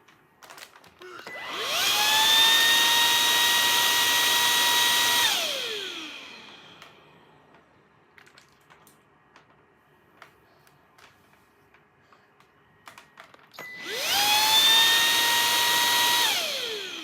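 A vacuum cleaner switched on twice. Each time its motor whines up to a steady high pitch, runs for a few seconds, then winds down as it is switched off. Faint small knocks and clicks fall in the quiet between the two runs.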